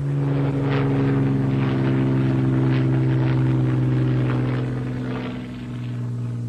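Propeller aircraft's piston engine droning steadily in flight, a constant hum that fades away near the end.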